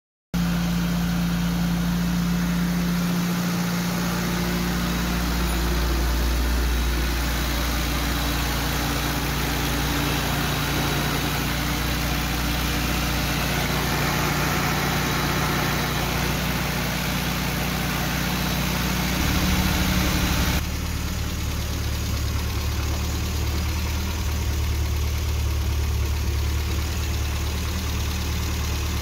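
Classic Mini's 1293 cc A-series four-cylinder engine idling steadily, just back together after the cylinder head was ported, with a Kent 266 camshaft fitted.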